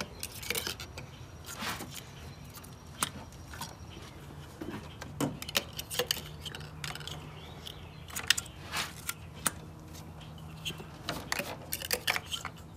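Ignition coil packs being pushed into the spark plug wells and snapped into place: scattered short plastic clicks and light rattles, several times.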